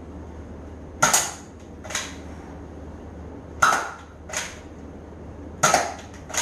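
Zuru X-Shot Ninja No Rez spring-powered foam dart blaster firing three times, each shot a sharp pop. Each pop is followed a little under a second later by a softer knock.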